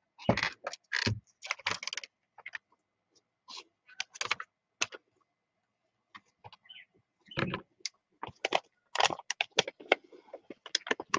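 Lined paper and cloth rustling and crinkling as they are handled and lifted, with a few dull knocks. The crackles come in irregular spells, with a pause around the middle.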